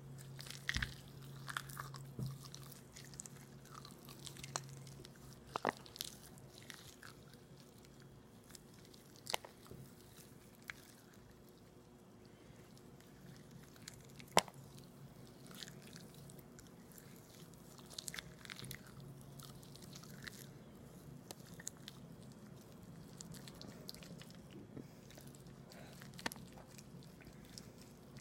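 Close-miked chewing and biting of aloe vera, with sticky, wet mouth clicks and the odd crisp bite at irregular intervals, the sharpest about midway. A faint steady low hum runs underneath.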